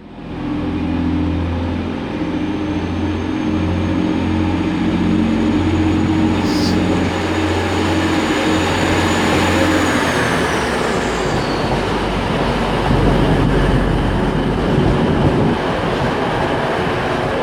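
TransPennine Express passenger train running past along a station platform. A steady low drone fills the first ten seconds, with a high thin whine that falls away just after the middle. A louder rush follows as the carriages go by.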